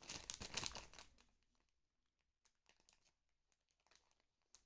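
Thin clear plastic bag crinkling as it is handled for about a second, then near silence with a few faint ticks.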